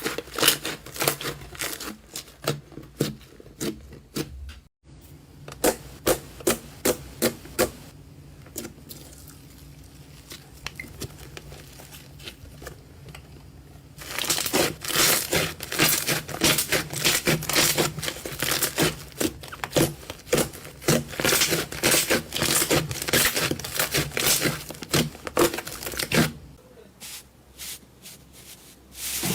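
Slime being pressed and worked by hand, giving rapid sticky crackling and clicking. The crackling is scattered at first, quieter for a few seconds in the middle, then dense for about twelve seconds before thinning out near the end.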